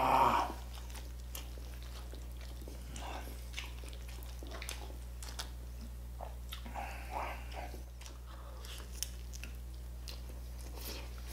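Close-miked eating sounds: roast chicken (lechon manok) being pulled apart by hand, bitten and chewed, with scattered wet smacks and crisp crunches of the roasted skin. A short loud burst comes right at the start.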